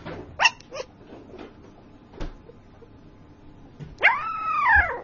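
Sleeping puppy calling out in a dream: two short high yips about half a second in, then, near the end, a long whining howl of about a second that rises and falls in pitch.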